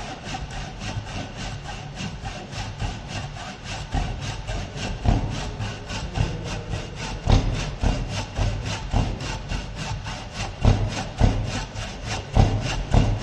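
Hand rip saw cutting into a wooden block clamped in a vise, in steady back-and-forth strokes about three a second, with a few heavier thuds in the second half. The saw is removing the waste wood for a T-joint.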